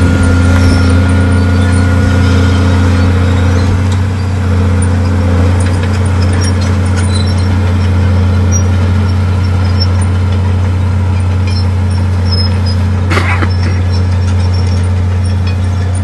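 Heavy construction machinery's diesel engine running steadily under load, a deep constant drone. There is a short burst of noise about thirteen seconds in.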